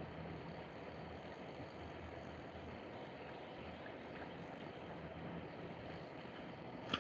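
Steady, even outdoor background noise with no distinct source standing out, and a single sharp click near the end.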